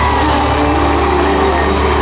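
Live band music playing loud over an arena sound system, recorded from among the audience, with held notes and the crowd faintly underneath.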